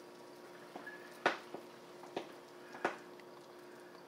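Melted butter sizzling faintly in a hot frying pan as crepe batter is poured in. Three sharp pops come through it, the first just over a second in, then at intervals of roughly a second.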